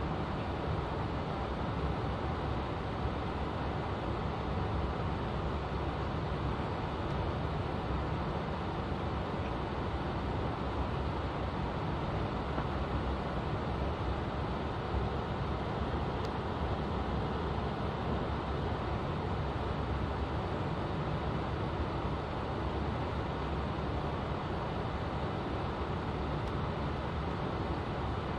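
Swiss S-Bahn commuter train running steadily, a continuous rumble of wheels on rail heard from inside the carriage.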